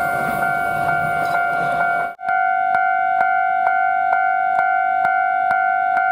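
Japanese railway level crossing warning bell ringing, an electronic ding repeating about twice a second over a steady tone. Passing-train rumble sits under it for the first two seconds, then drops away abruptly, leaving the bell alone.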